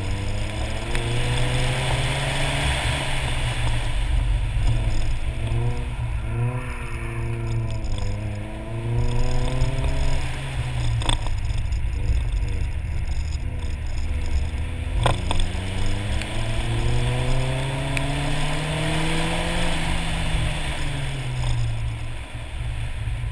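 Nissan 240SX's KA24 four-cylinder engine pulling up through the revs and dropping back again and again as it is driven hard on an autocross course, with a quick run of short revs and drops about six to nine seconds in. A steady hiss runs under it, and two sharp clicks come about eleven and fifteen seconds in.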